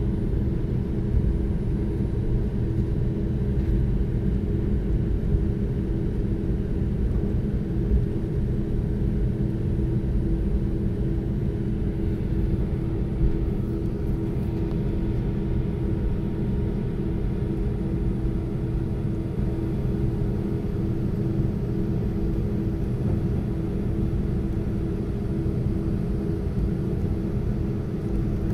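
Cabin sound of an Airbus A319-132 taxiing, heard from a seat over the wing: a steady low rumble from its IAE V2500 engines at taxi power, with a steady hum and no change in level.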